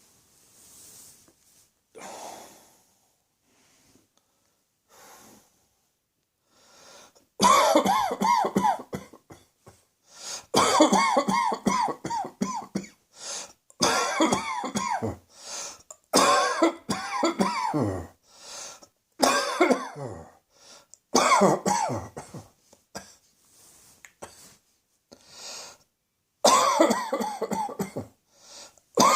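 A person coughing hard in repeated fits of several coughs each, with short gaps between the fits. The coughs are hoarse and partly voiced. The first several seconds hold only faint breathing.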